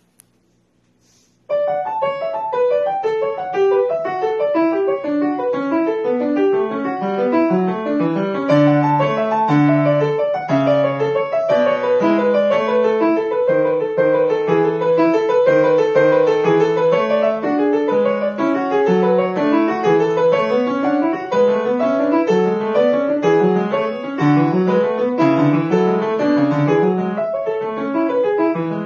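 Grand piano played solo. The playing starts about one and a half seconds in and moves quickly, with many rising and falling runs of notes.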